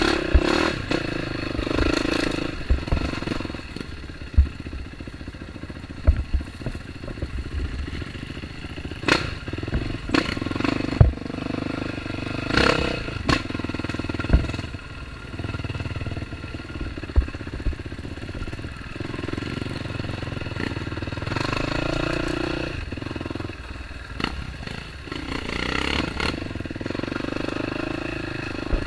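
Dirt-bike engine running on a trail, swelling and easing off by turns, with frequent sharp knocks and clatter from the bike over rough ground.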